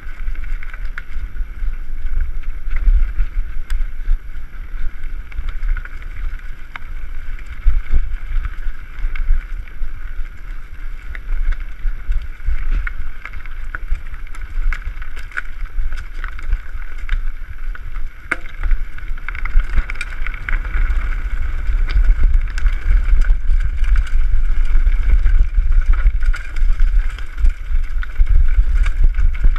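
Wind buffeting the microphone on a fast mountain-bike descent down a dirt trail, with the bike clattering and clicking over bumps and a steady hiss of rolling. It grows louder about two-thirds of the way through as the speed picks up.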